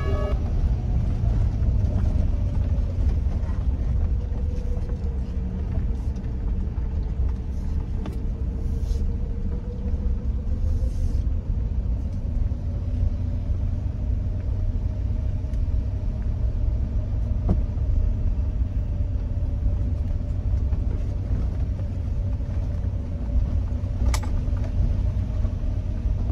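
Pickup truck driving at a steady pace: a continuous low engine and road rumble with an engine note that slowly wanders up and down in pitch, and a couple of brief light knocks later on.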